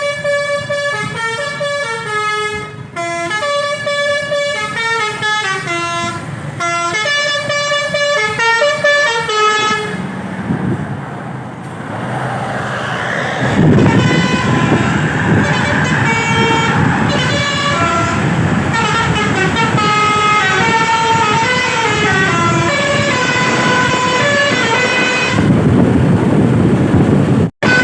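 Basuri-type telolet multi-tone musical air horn on a bus playing a winding melody of quick stepped notes. About ten seconds in the tune breaks off under a rushing noise. Then it resumes louder over a low rumble.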